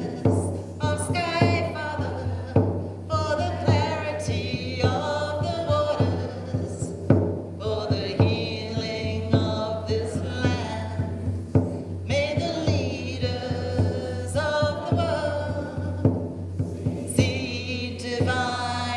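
A voice singing a chant-like melody with a wavering vibrato over a steady low drone, with sharp percussive strikes here and there.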